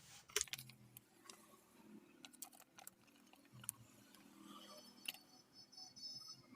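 Faint, scattered small clicks and taps from handling the water seal and rubber of a water-pump motor as grease is applied to them.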